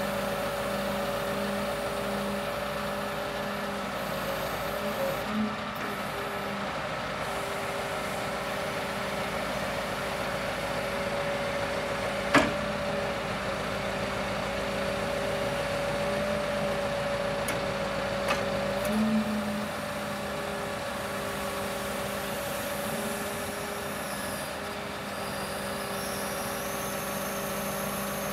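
Scania R730 crane truck's V8 engine running steadily, driving the hydraulics as the Hiab loader crane's boom is raised, with a steady whine over the engine hum. A single sharp click comes about twelve seconds in, with a few lighter knocks around it.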